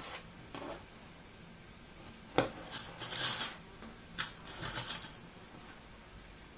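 Knit fabric being handled and pinned on a tabletop: two spells of crisp rustling, each opened by a sharp small click, the first about two and a half seconds in and the second about four seconds in.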